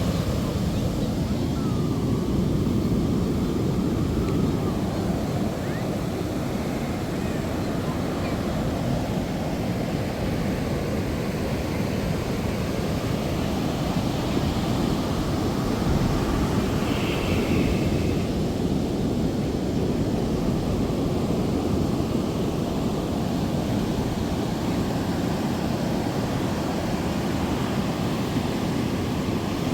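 Steady rush of ocean surf on the beach, with wind rumbling on the microphone.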